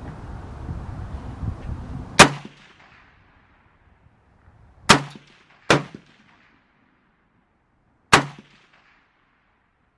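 Rifle fired four single shots, unevenly spaced, the first the loudest, each with a short ringing tail. These are test shots after moving the sight to the left to correct hits high and right.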